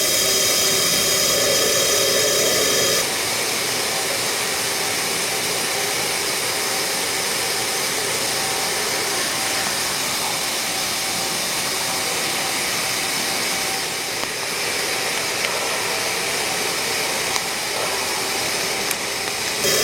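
Mazak Multiplex W-200Y CNC lathe at work, a steady hissing mechanical noise with faint steady tones. The sound steps down slightly and changes character about three seconds in.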